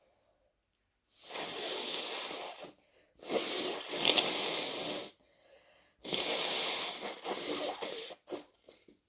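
Three long, wet nose blows from a person congested with the flu, each lasting about two seconds, followed near the end by a few short, faint sniffs or rustles.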